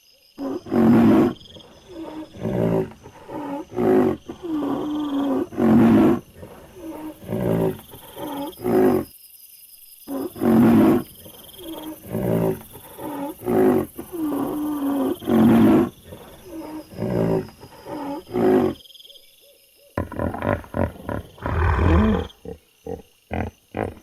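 An animal's repeated short roaring calls, several a second, broken twice by about a second of silence.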